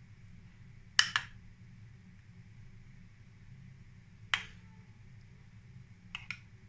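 Metal spoon clinking against a ceramic bowl and plate while spooning yogurt: a double clink about a second in, a single clink past four seconds, and another double clink near the end, over a faint low hum.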